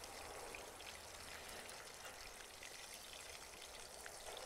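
Faint, steady sizzling of an egg and milk mixture frying in olive oil in a metal pan over a wood fire, with a few small ticks.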